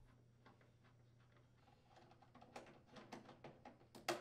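Faint light clicks and ticks of a Phillips screwdriver unthreading screws from a snowblower's plastic housing, sparse at first, coming more often from about two seconds in, with one sharper click near the end.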